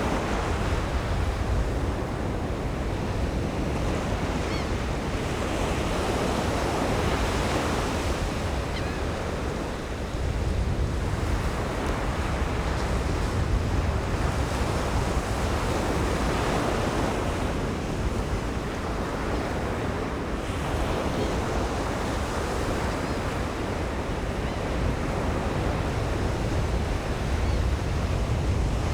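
Ocean surf breaking on a sandy beach, waves washing in and out in slow, repeated swells, with a low rumble of wind on the microphone.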